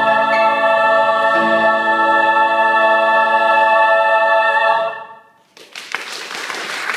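Choir holding the final chord of a song, releasing it a little under five seconds in as the hall's reverberation dies away. Audience applause breaks out about half a second later.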